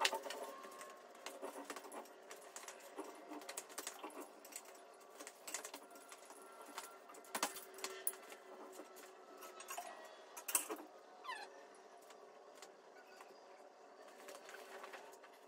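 Faint, scattered metallic clinks and rattles from a shop engine hoist and its lifting chain as a suspended engine is worked into position, with a couple of short squeaks about two-thirds of the way in.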